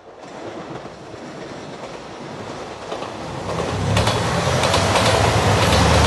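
JR Shikoku 2700 series diesel limited express approaching and passing close by. Its rumble and the rush of wheels on rail grow steadily louder and turn heavy and deep about four seconds in, with wheels clicking over the rail joints.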